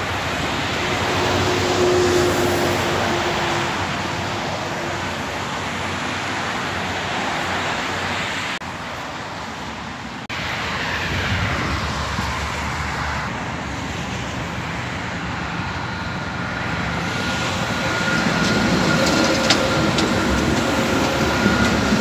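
Road traffic passing on a wide road, then a Dubai tram approaching and drawing alongside the stop, getting louder toward the end with a steady high whine.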